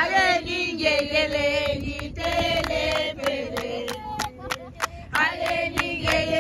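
A group of voices chanting and singing a Zulu traditional song together, with sharp percussive hits scattered through it.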